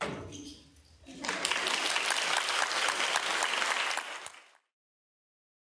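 Audience applauding, a dense patter of many hands clapping that starts about a second in, lasts about three seconds, then fades and cuts off suddenly into silence.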